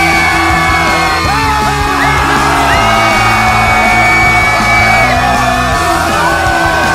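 Loud music with a steady bass line, overlaid by many voices yelling and whooping in celebration.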